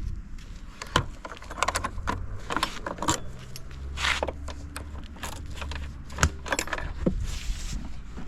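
Irregular clicks, taps and light metallic jingling of handling, with a low hum under it for a couple of seconds midway.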